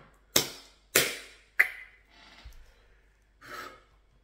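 A man huffing out three sharp, breathy exhalations about half a second apart, then a softer breath about three and a half seconds in, reacting to the heat of a freshly made ball of pounded yam in his hand.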